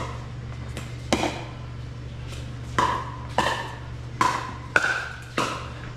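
Pickleball rally: paddles striking the hollow plastic ball, about six sharp pocks, each with a short ring, coming faster in the second half. A steady low hum runs underneath.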